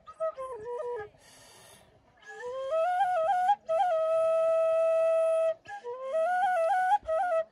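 Background music: a solo flute plays a slow, ornamented melody. There is a short pause about a second in, then a long held note in the middle.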